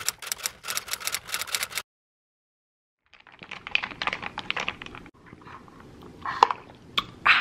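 Ice cubes rattling in a plastic iced-coffee cup as it is shaken: two stretches of rapid clicking separated by a second of silence. After that, quieter sipping through a straw with a few sharp clicks near the end.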